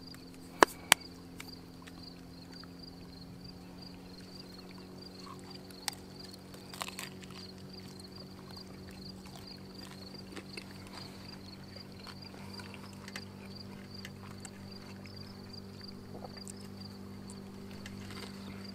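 Crickets chirping, a high, evenly pulsing chirp over a steady low hum. Two sharp clicks sound about half a second in.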